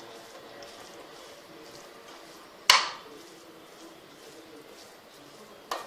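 Spoon stirring cooked foxtail millet rice and vegetables in a pan, mostly quiet, with a sharp knock of the spoon against the pan a little under halfway through and a smaller knock near the end.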